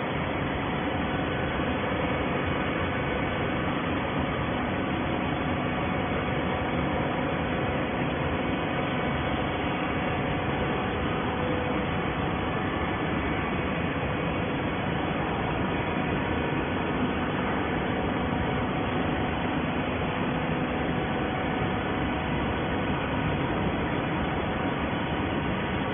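Automatic horizontal baler line and its feed conveyor running, a steady mechanical noise with a faint constant hum and whine and no change in pace.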